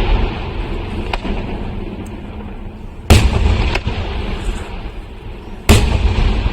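Aerial firework shells bursting: two big booms about two and a half seconds apart, each trailing off in a long rumbling echo, with smaller sharp cracks between them.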